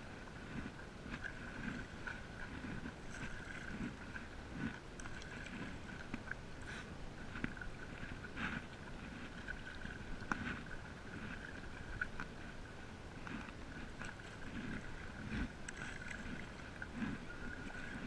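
Paddle strokes through open water from a stand-up paddle board: the blade dipping and pulling in an irregular rhythm, water splashing and lapping at the inflatable board, with occasional short clicks and a faint steady high-pitched hum.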